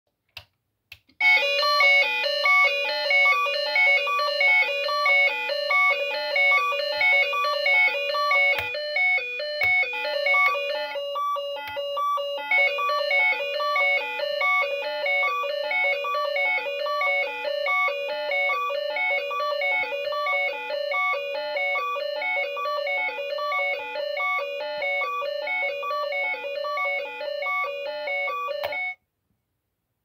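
Electronic "sparrow" chirp sound from a Daeduk Precision (대덕정밀) warning light's built-in sounder: a fast, evenly repeating pattern of high electronic chirps. It starts about a second in and cuts off suddenly near the end.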